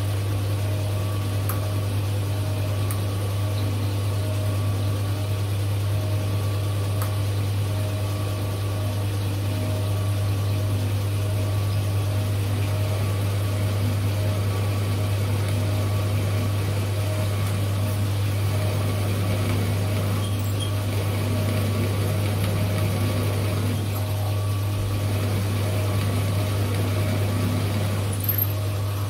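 Drilling machine running steadily with a low motor hum and a few steady higher tones as a twist drill bores into the end of a round metal bar, the chips curling off the cut.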